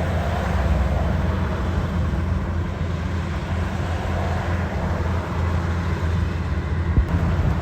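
Engine of farm machinery running steadily with a low, continuous rumble, with one brief knock near the end.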